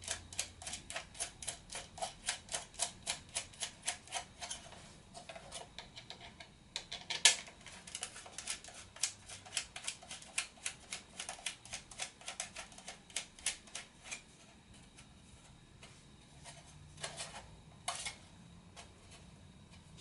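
Rapid small clicks while a landing-gear strut is screwed onto a CX-20 quadcopter's plastic body: about three clicks a second for the first several seconds, then more scattered, with one sharper click about seven seconds in, and only a few near the end.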